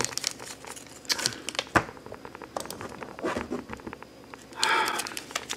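Hands handling a plastic action figure and its clear plastic wrap: soft rustling and small plastic clicks, with one sharper click about two seconds in and a brief louder rustle near the end.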